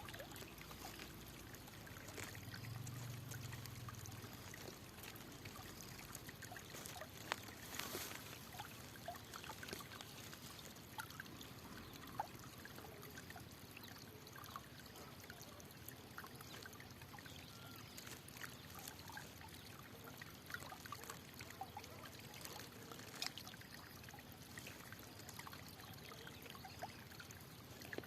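Faint trickling water of a small stream, a steady hiss with many scattered little splashes and drips.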